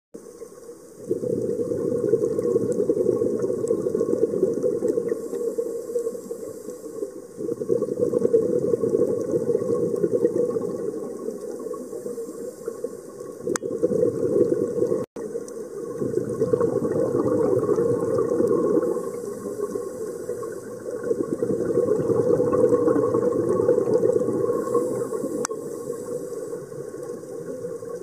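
Muffled underwater rumble and hiss from a scuba diver's regulator and exhaled bubbles, swelling and fading in surges a few seconds long.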